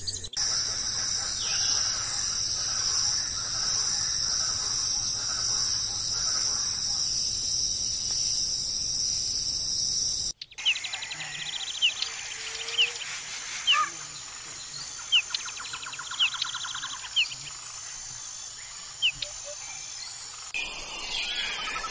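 Steady, high-pitched insect drone for about the first ten seconds, then an abrupt cut to birds calling with short chirps, trills and quick whistles, and another change to different bird calls near the end.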